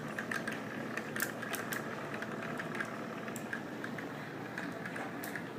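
Small electric motor of a tornado-in-a-bottle toy running steadily, spinning water into a vortex, with scattered light ticks and clicks.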